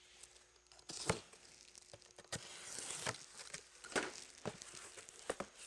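Cardboard box being slit open along its packing tape and its flaps pulled back: a run of short scratchy tearing and crinkling sounds, half a dozen sharp scrapes over a few seconds.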